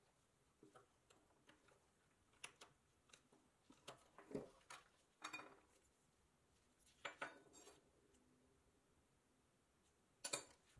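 Faint, scattered clicks and metal clinks as needle-nose pliers work the bent tabs on a toy truck's small pressed-steel grille and bracket, and the freed parts are handled and set down on a wooden bench. A sharper clink comes near the end.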